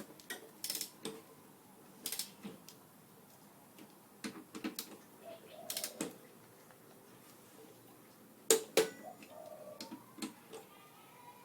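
Torque wrench ratcheting and clicking as it tightens a motorcycle's brake caliper bolts: sharp metallic clicks in small irregular groups, with two louder clicks in quick succession about eight and a half seconds in.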